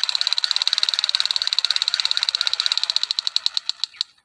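Toy M16 rifle firing: a rapid, even rattle of about fifteen clicks a second that slows and fades out near the end.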